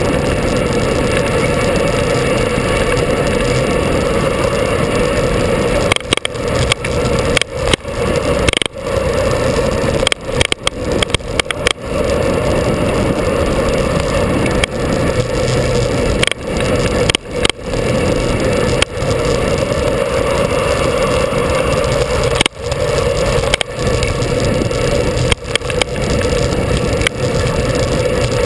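Wind rushing over a bicycle-mounted camera at speed on a mountain road, with road rumble underneath; the noise cuts out sharply for a moment many times.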